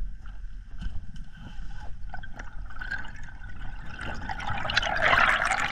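Underwater sound picked up by a freediver's camera as the diver moves through the water: a low rumble of water movement with small scattered clicks, then a loud rushing, bubbling hiss that builds from about four seconds in.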